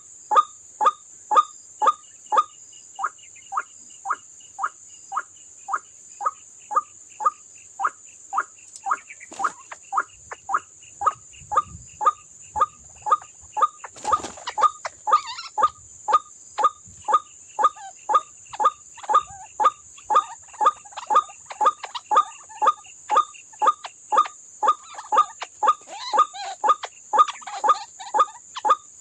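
White-breasted waterhen (ruak-ruak) calls repeated in a steady, even rhythm of about two a second. Toward the end, more overlapping calls join in.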